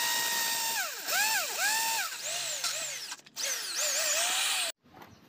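Corded electric drill boring into a ceramic floor tile, its motor whine dipping and rising in pitch again and again as the bit bites and the trigger is eased, running lower and slower through the second half. The sound cuts off suddenly near the end.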